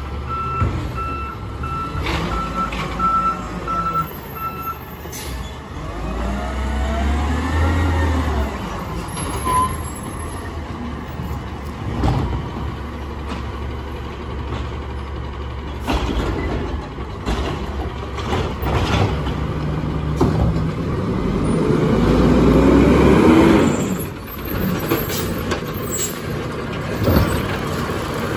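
Peterbilt 320 automated side-loader garbage truck: its backup alarm beeps steadily for the first few seconds, then the diesel revs up twice, rising in pitch, about six seconds in and again near the end as the side arm reaches for a cart. Sharp clunks and hisses are scattered between.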